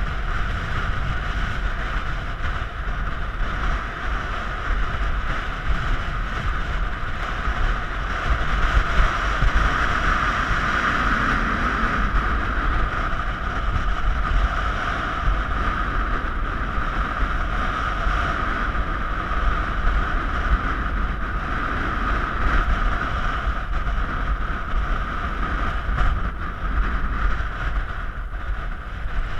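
Wind rushing over the camera microphone in flight, a steady loud rushing noise with no engine or voices.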